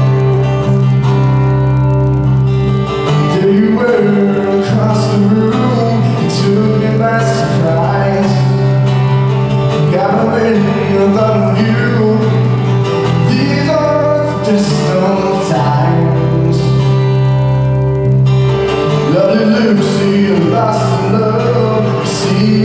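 Live band music: acoustic guitars strumming over held electric-bass notes, with a male voice singing from a few seconds in.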